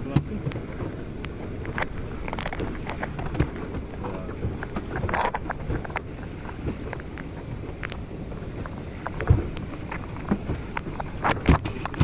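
Inflatable boat under way, its hull slapping over waves in irregular knocks and splashes over a steady rush of water and wind, with two louder slaps near the end.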